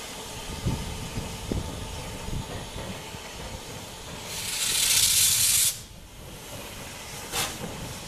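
LMS Black Five steam locomotive moving slowly, with low rumbling and a few knocks, then a loud burst of steam hiss from its open cylinder drain cocks about four seconds in, lasting about a second and a half and cutting off suddenly. A couple of short clicks follow near the end.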